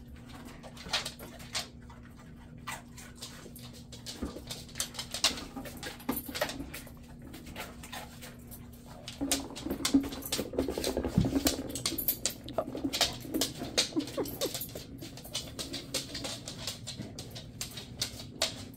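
A dog nosing and batting a snack-filled red rubber Kong snail toy across a hardwood floor: scattered knocks and taps as the toy bumps and rolls, with the dog's claws clicking on the wood. The activity gets busier about halfway through.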